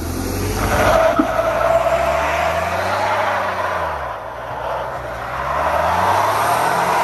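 Pickup truck doing a burnout: the rear tire spins and squeals on asphalt while the engine revs up and eases off twice.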